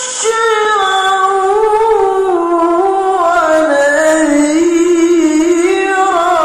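A male qari reciting the Quran in the melodic tilawah style. He holds one long, high, ornamented phrase whose pitch slowly wavers up and down.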